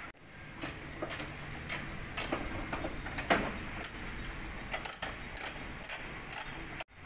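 Irregular clicks and clacks of hand work on a car's front end, with a louder rustle about three seconds in.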